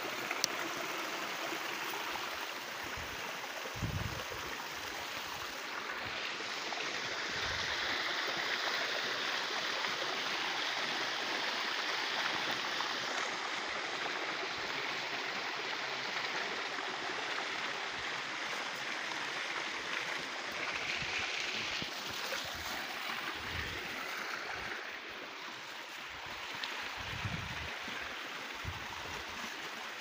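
Water of a rocky hill stream rushing and splashing over boulders in a small cascade: a steady, even rush with no change in pitch. A few low thumps break in, about four seconds in and twice near the end.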